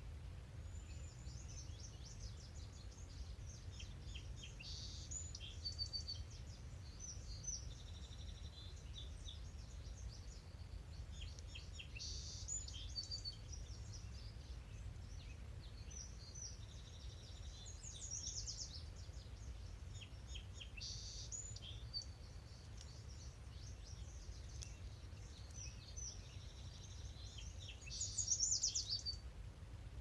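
Several songbirds singing at once in a spring chorus, short high phrases and trills overlapping and recurring every few seconds, with one louder song near the end, over a steady low rumble.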